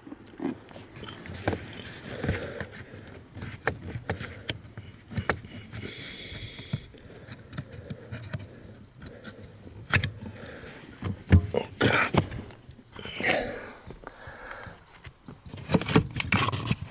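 Irregular plastic clicks, knocks and scrapes of a VW Golf 5 accelerator pedal module being unlocked and pulled out of its mount, with the loudest knocks in the second half.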